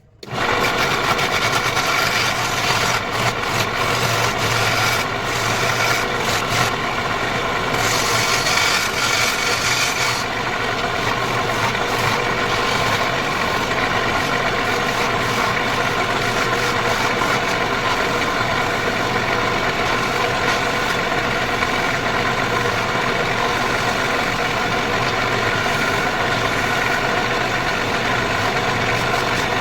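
Wood lathe running steadily with a motor hum, while a turning tool scrapes and cuts the spinning wood, with sharper hissy cutting at times. It starts abruptly just after the opening.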